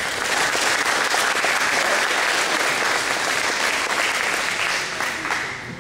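Audience applauding: dense, steady clapping that thins and fades out near the end.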